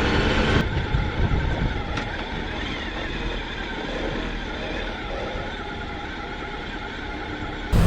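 A motor vehicle running, a steady noisy drone, with an abrupt change in the sound about half a second in.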